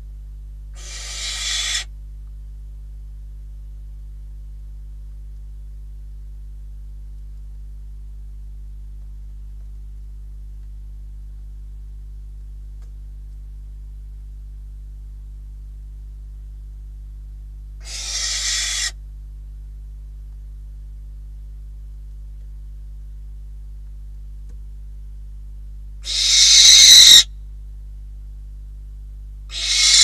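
Barn owl giving four hissing screeches of about a second each, two fairly soft ones spaced well apart, then two much louder ones close together near the end. A steady low hum runs underneath.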